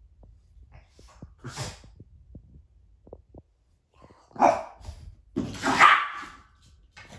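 Small dogs, a Yorkshire terrier and a French bulldog, barking in a scuffle: a short bark about four and a half seconds in, then a longer burst of barking around six seconds.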